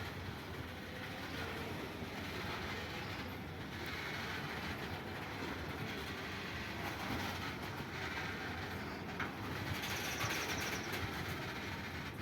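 Freight train wagons rolling past on the rails, a steady running noise of steel wheels on track.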